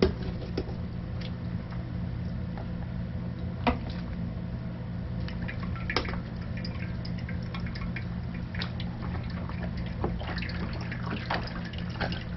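Cooked tomatoes being cranked through a hand-cranked Victorio food strainer: wet squishing and dripping as the juice and pulp run into the bowl, with a few sharp clicks and knocks. A steady low hum runs underneath.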